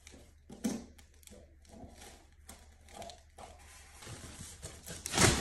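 Cardboard box being handled and opened by hand: scattered rustles and light taps on cardboard, then a louder burst of rustling near the end.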